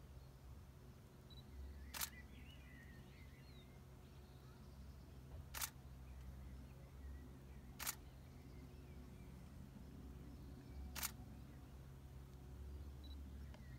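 DSLR shutter firing four single frames a few seconds apart at uneven intervals, each a short sharp click, during handheld flash macro shooting. A low steady background rumble runs underneath.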